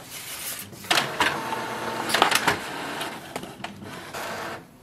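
Epson EcoTank ET-2760 inkjet printer running a print job: paper feeding and the print head moving, a whirring with several sharp clicks, stopping shortly before the end. It is printing the print-head alignment pattern.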